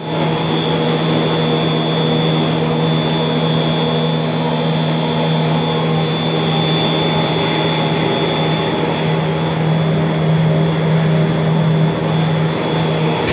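Snack food extrusion line machinery running: a loud, steady drone of motors, with a strong low hum and a thin high whine held throughout.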